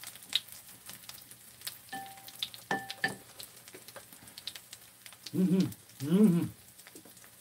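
Batter-coated dureup shoots (dureup-jeon) frying in oil in a pan on a portable gas burner: a steady sizzle with scattered small clicks and, about two to three seconds in, a couple of short ringing clinks. Near the end a voice sounds twice briefly, louder than the frying.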